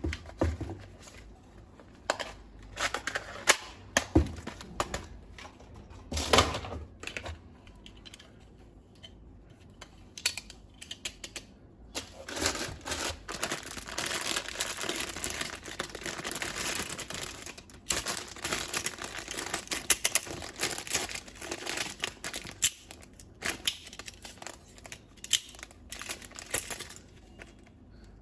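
Hands unpacking a toy: plastic packaging crinkling and rustling, with many scattered clicks and taps of hard plastic. The crinkling is densest in a spell near the middle.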